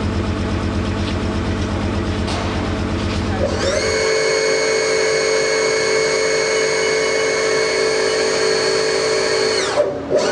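A low throbbing machine drone. About four seconds in, a Haas CNC mill's spindle spins up with a rising whine, runs at a steady pitch for several seconds, then winds down near the end and starts to spin up again.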